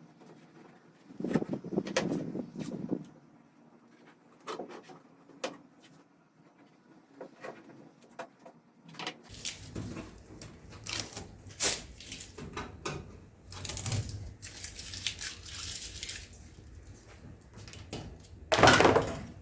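Hand-work noises from fitting a plastic gap strip with tape at a pickup's tailgate: rubbing, light taps and clicks as the strip and tape are pressed down and handled, with a louder scrape near the end.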